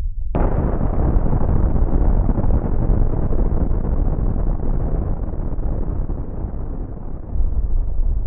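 Explosion sound effect: a sudden blast a moment in, then a long, deep rolling rumble that slowly dulls as its higher part fades.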